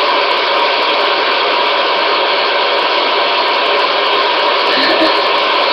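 Steady, loud white-noise hiss.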